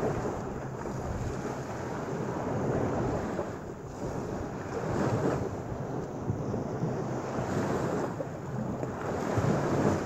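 Small Lake Michigan waves washing onto a sand beach, swelling and easing every few seconds, with wind buffeting the microphone.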